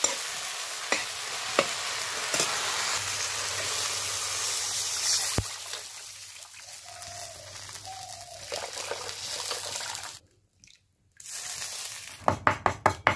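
Tomato masala frying and sizzling in an iron kadai, stirred with a steel ladle. About five seconds in, water goes into the pan and the sizzle drops to a quieter simmer. Near the end, after a brief silence, a quick run of sharp knocks begins.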